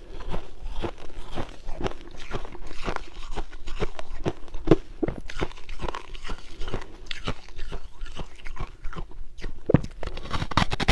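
Refrozen ice being bitten and chewed: a rapid, uneven run of sharp crunches, with a few louder bites near the end.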